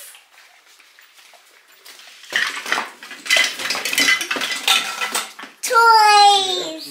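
Objects clattering and clinking as a child rummages through a cardboard box, starting a couple of seconds in and lasting about three seconds. Near the end a child's high voice gives one call sliding down in pitch.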